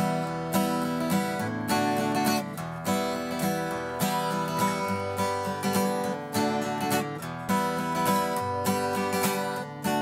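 Acoustic guitar strummed in a steady rhythm, its chords changing every second or two.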